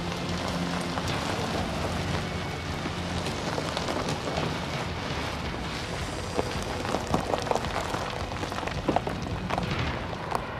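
Car tyres rolling slowly over a gravel track, stones crunching, with sharper crackling pops of gravel from about halfway through as a Mercedes-Benz E-Class saloon draws close and comes to a stop.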